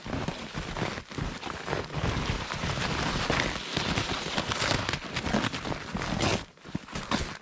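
Footsteps crunching through deep, very cold, dry snow, with snow-laden spruce branches brushing past: a dense, continuous crackling that eases briefly near the end.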